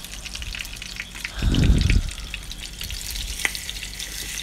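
Egg-coated bread slices frying in oil in a small pan: a steady crackling sizzle. About a second and a half in, a louder low rumble lasts about half a second.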